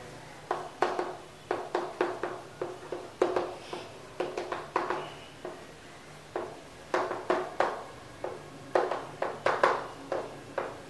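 Chalk writing on a chalkboard: quick, irregular taps and short scrapes as each stroke is made, with a short pause about halfway through.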